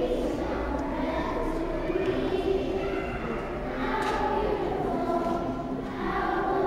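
A group of young girls singing together as a children's choir, with sustained sung notes.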